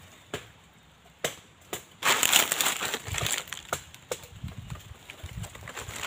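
Dry crunching and crackling, loudest for about a second and a half starting about two seconds in, among scattered sharp clicks and a few dull low thumps.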